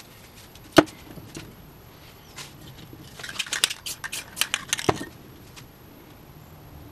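Spray paint cans and caps handled on the work table: a sharp knock about a second in, then a quick flurry of metallic clicks and clinks from about three seconds in, ending with another knock.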